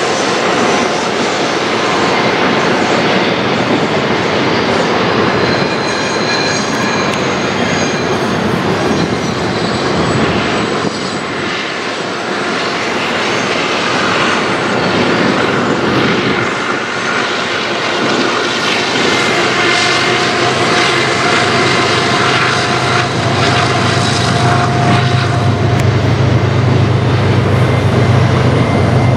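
Long freight trains rolling through the canyon: a steady rumble of wheels and cars, mixed with the rush of fast river water. A diesel locomotive's low engine drone grows louder near the end.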